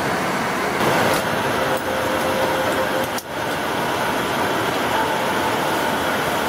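Steady rushing hiss of air in a Bombardier Q400 airliner cabin during boarding, broken by a brief dip about three seconds in, with a faint held tone in the first half.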